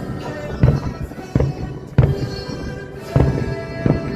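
Fireworks shells bursting in about five sharp booms at uneven intervals, over orchestral show music with long held notes.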